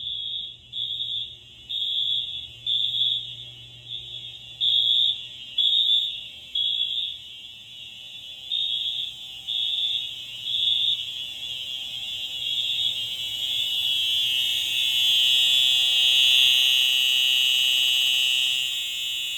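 Several Wheelock MT multi-tone fire alarm horns sounding together, out of step with each other: high-pitched beeps about once a second that fill in and merge into a near-continuous, louder tone over the last few seconds.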